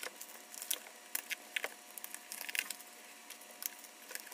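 Packing material and a cardboard box being handled and pulled apart: rustling with scattered short, sharp crackles.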